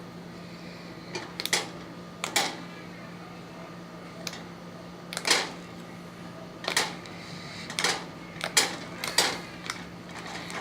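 Light green slime being squeezed and poked by hand for ASMR, giving irregular sharp pops and clicks of trapped air, about a dozen of them.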